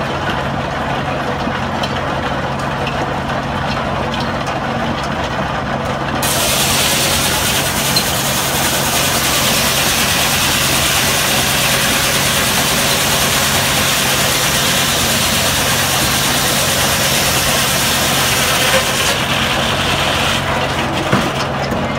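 Large circular sawmill blade spinning over the steady hum of the mill's drive, then cutting through a log on the carriage from about six seconds in until near the end, a loud high hiss that stops when the cut is through.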